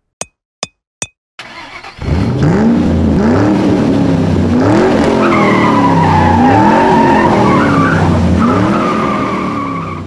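Three sharp clicks in the first second, then from about two seconds in a loud car engine revving up and down with tyre squeal, its pitch rising and falling over and over like a car being drifted.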